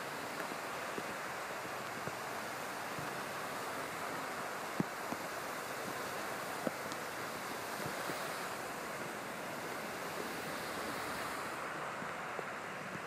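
Steady rushing of water from cars driving through deep flood water on a freeway, their tyres throwing up spray, with a few faint ticks scattered through it.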